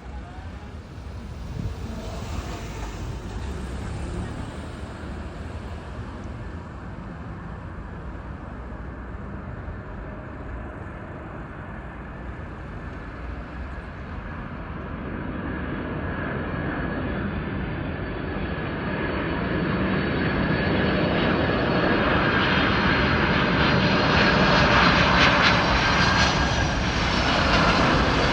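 Boeing 747-400 freighter's four turbofan engines on landing approach, a distant rumble that grows steadily louder as the aircraft nears, with a high engine whine coming up over the second half and loudest near the end.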